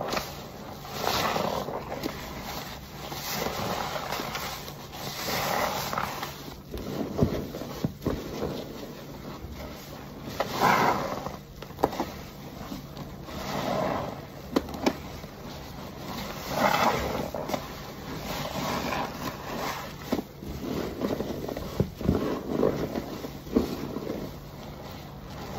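Perforated car wash sponge full of thick laundry-detergent foam being squeezed and kneaded by hand. Each squeeze gives a wet squelching swell, coming about every two seconds, with sharp wet clicks and pops in between.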